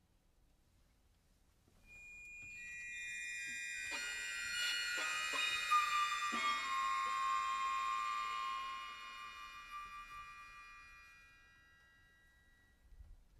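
Chamber ensemble playing contemporary classical music. After about two seconds of near silence, a chord of high, steady tones swells in, with a few sharp attacks in the middle. The chord then holds and fades away, and a faint click follows near the end.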